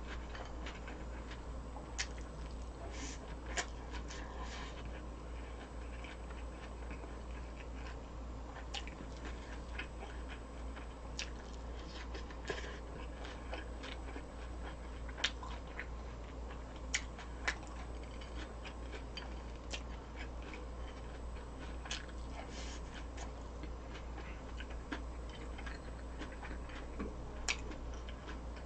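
Close-up eating sounds: a person chewing fried food and salad, with scattered sharp clicks and crunches. A steady low hum runs underneath.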